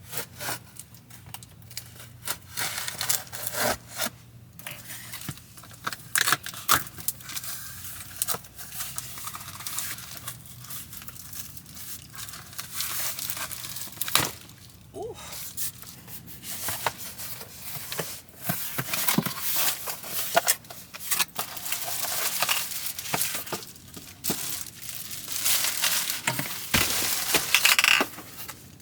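Hands-on handling noises: irregular rustling, crinkling and tearing, with many scattered clicks, knocks and scrapes.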